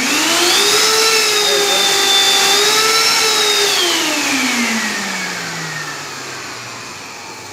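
Canister vacuum cleaner's newly fitted motor switched on, spinning up quickly to a steady high whine. About three and a half seconds in it winds down, the pitch falling steadily as it coasts. The test run shows that the replacement motor works.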